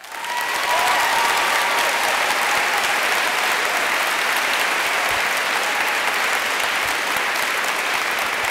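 Audience applauding: dense, steady clapping that starts suddenly at the very beginning.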